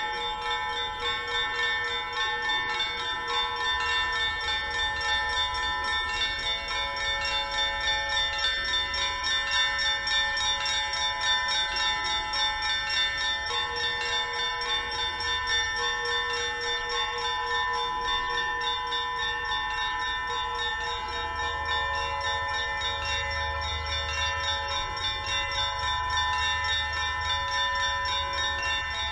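Russian Orthodox monastery bells ringing in a continuous peal: many bells sound at once in quick repeated strokes, their ringing tones overlapping and sustained.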